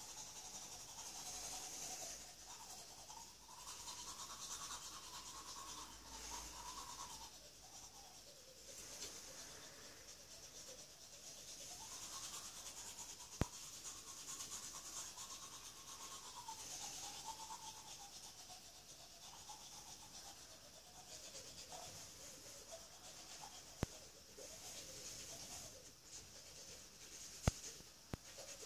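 Manual toothbrush scrubbing teeth: a faint, steady brushing whose pitch wanders as it goes. Three sharp clicks stand out in the second half.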